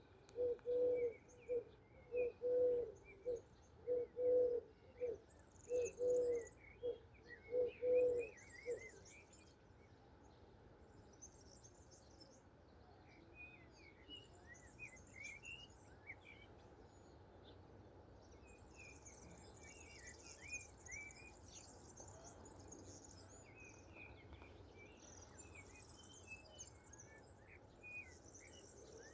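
A dove cooing, a steady run of low repeated coos that stops about nine seconds in, over small songbirds chirping and trilling with quick high notes that carry on throughout.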